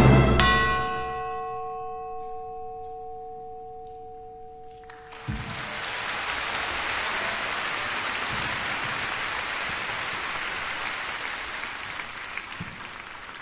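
The orchestra's last notes ring on as a few sustained tones that fade away over about five seconds. Then audience applause breaks out suddenly and goes on, slowly fading near the end.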